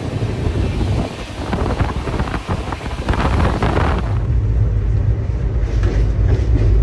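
Rushing wind buffeting the microphone at the open door of a fast-running Shatabdi Express coach, with the train's rumble underneath. About four seconds in it cuts to a steadier low rumble of the train running, heard from inside the coach.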